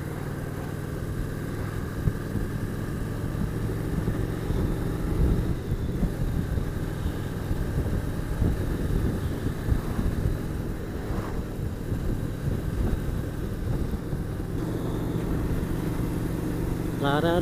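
Motorcycle engine running at road speed under the steady rush of wind and road noise, heard from the rider's seat.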